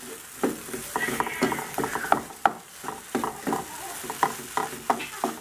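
A spatula scraping and turning mashed potato and ham in a non-stick frying pan, with irregular scrapes and knocks against the pan several times a second, over the faint sizzle of the potato frying.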